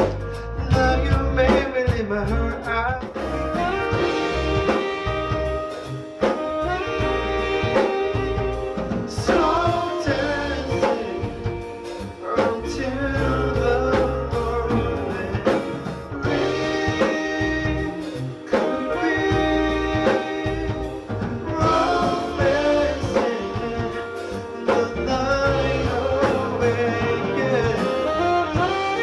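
Live band music with a man singing a slow soul-pop song into a microphone over a steady beat.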